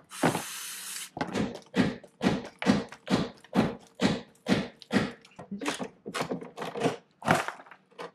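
Hammer striking a stubborn, rusted bolt on a steel fuel tank skid plate, about two to three blows a second, to drive it out. It starts with a second-long hiss of penetrating-oil aerosol spray.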